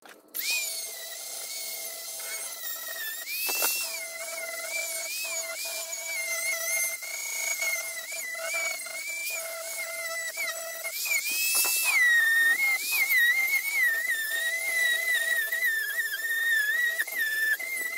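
Dremel MultiPro rotary tool running at high speed against a license plate, grinding off rust and old paint. Its high-pitched whine wavers up and down as the bit bears on the metal, rising briefly twice.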